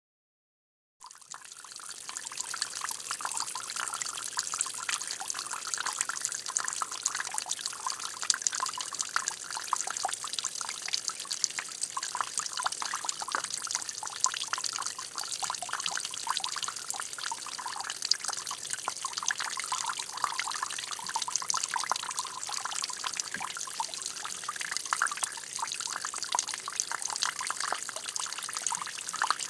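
Water trickling and splashing in a steady, dense patter of small drops, starting suddenly about a second in.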